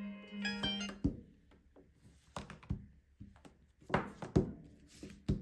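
Smartphone alarm tone playing a marimba-like melody that cuts off about a second in with a thunk. Then comes a string of irregular taps and knocks of the phone being handled, with two louder knocks near the end.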